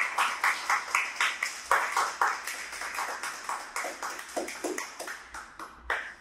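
A small group of children clapping their hands in quick, even claps, about four or five a second, growing quieter and dying out near the end.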